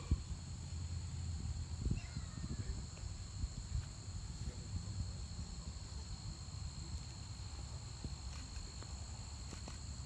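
Outdoor field ambience: a steady high-pitched insect chorus over a continuous low rumble, with a few faint chirps about two seconds in.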